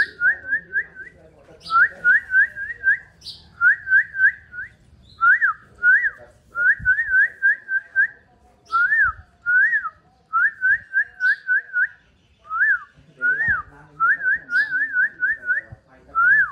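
Clear high whistles repeated over and over: quick runs of three to five short rising notes, alternating with single notes that rise and fall.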